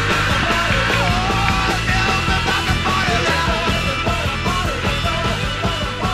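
Background music: a band playing a steady beat, with a sung vocal line over it.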